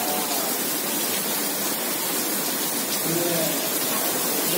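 Heavy rain pouring steadily onto paved paths and grass: a dense, even hiss.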